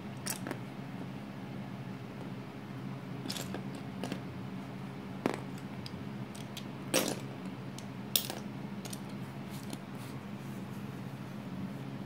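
Plastic Lego bricks clicking and clacking as they are handled, set down on a wooden floor and pressed together: scattered sharp clicks, the loudest about seven and eight seconds in.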